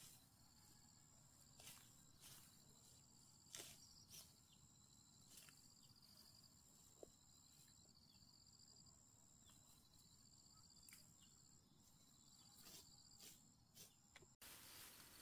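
Faint high, steady insect trilling, with scattered faint snaps and rustles of ferns being pulled up by hand. The sound drops out abruptly near the end.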